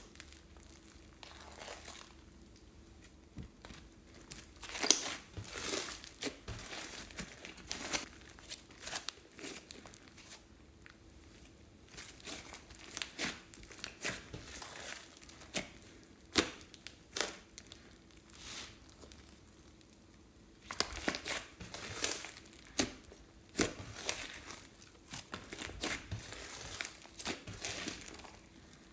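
Hands squishing, stretching and folding a large mass of slime with small beads mixed in, giving irregular sticky crackles and pops. The pops come in clusters with quieter gaps, thickest in a busy run in the last third.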